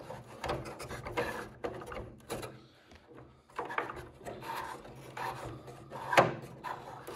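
Irregular rubbing, scraping and light knocking as hands work a servo lead through a laser-cut plywood model-aircraft fuselage frame, with one sharper knock about six seconds in.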